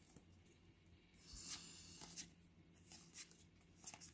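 Pokémon trading cards sliding against one another as they are flipped through by hand: a few soft, brief swishes.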